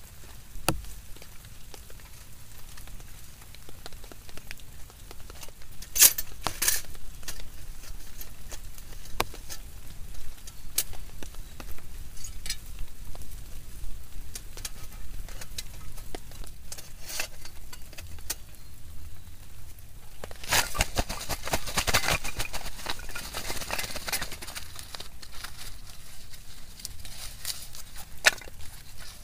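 Steady rain with sharp crackles and clicks scattered through it. Two loud cracks come about six seconds in, and a dense run of crackling comes about two-thirds of the way through.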